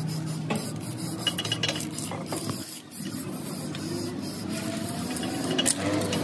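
Aerosol spray can hissing in short spurts, with a brief break a little under three seconds in.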